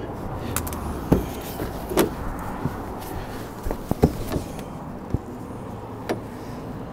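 Scattered sharp clicks and knocks, about nine in all, of the Starlink dish cable being handled and worked along the RV roof under the edges of the solar panels, over a steady low hum.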